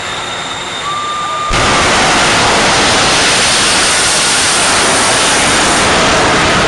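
Jet engines of a jet-powered semi truck whining at the start line, then about a second and a half in jumping suddenly to full thrust as the truck launches down the drag strip: a loud, steady rush of jet noise.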